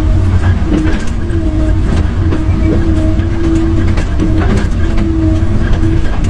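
Excavator's diesel engine running under load, with the steady whine of its hydraulics rising and falling a little as the machine works. Scattered clunks and knocks run through it.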